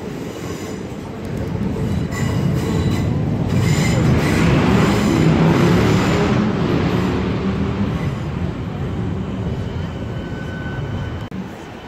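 Passenger train crossing the steel truss railway bridge alongside: a heavy rumble of wheels on the rails that builds to its loudest in the middle and then fades, with thin metallic wheel squeal on top, one squealing tone standing out near the end.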